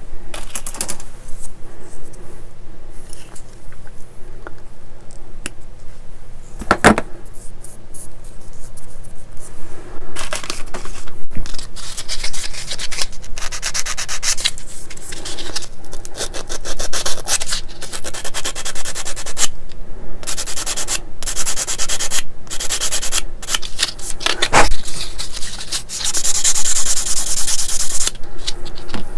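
Sanding a small plastic model-kit part in quick back-and-forth scratchy strokes, cleaning up the cut sprue marks. There are two sharp clicks, about seven seconds in and near the end.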